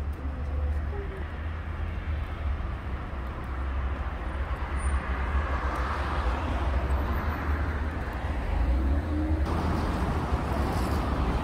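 Street traffic, with a vehicle passing that is loudest about halfway through, over a steady low rumble of wind on the microphone.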